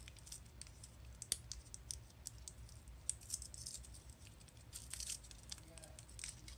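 Fingers peeling the wrapper off a watercolour half pan: faint, irregular crinkling and small clicks.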